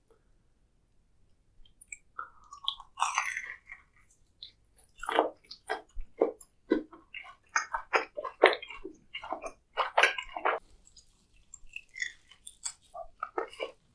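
Close-miked chewing of food: a quiet start, then a bite about two seconds in, followed by a long run of short, separate chewing sounds with a brief pause near the end.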